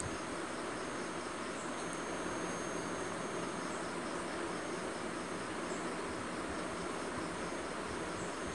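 Crickets chirping in an even rhythm, with one steady high trill, over a constant background hiss.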